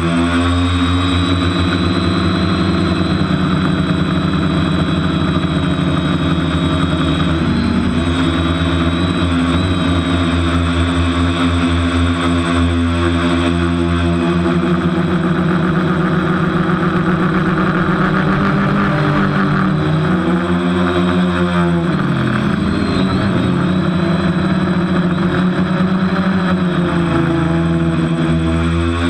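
TBS Discovery quadcopter's electric motors and propellers whining, heard close from the onboard camera. The pitch dips and rises with throttle changes, most deeply about three quarters of the way through. The quad is flying on a propeller the pilot calls dodgy.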